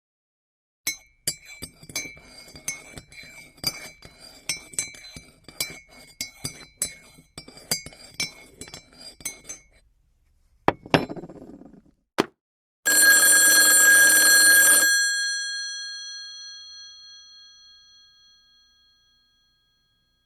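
A run of light clinks, like ceramic or glass being struck, about two a second for around nine seconds. Two sharp knocks follow, then a bell rings loudly for about two seconds and slowly dies away.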